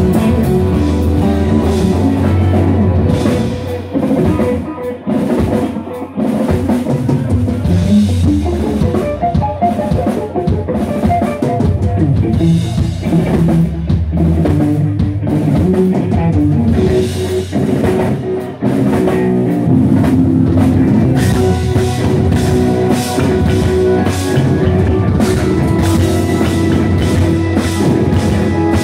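Live rock band playing an instrumental passage, with a drum kit driving a steady beat under electric guitars and keyboard. The volume dips briefly about four to six seconds in and again near eighteen seconds.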